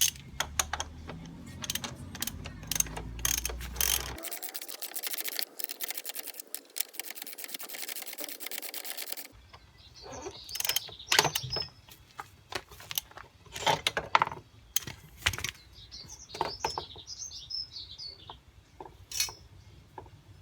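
Hand-tool work on a motorcycle front axle: clicks and metallic knocks, then about four seconds in a rapid, steady run of clicking for some five seconds as the loosened 24mm axle bolt is run out. After it, scattered clinks and knocks with a few short high chirps as the axle and wheel come free.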